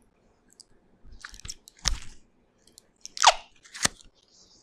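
New product packaging handled close to the microphone: short, crisp crackles and crunches in a few separate bursts, a cluster about a second in and two sharper ones past the three-second mark.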